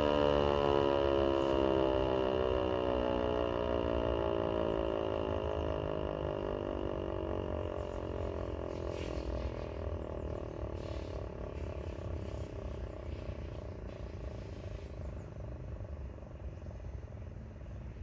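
Landert MSL-6 electric motor siren (11 kW) winding down after its steady all-clear tone: the rotor coasts to a stop, so its tone slowly falls in pitch and fades.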